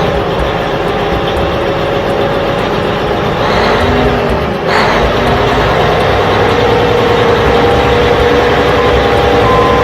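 A vehicle engine running steadily, with a brief dip and change in the sound about four and a half seconds in.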